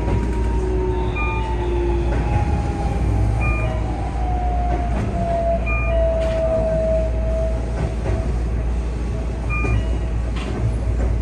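Keihan 3000 series train's Toyo IGBT-VVVF inverter drive whining downward in pitch over a steady rumble of wheels on rail: the train is braking and slowing. A short two-note electronic beep repeats about every two seconds.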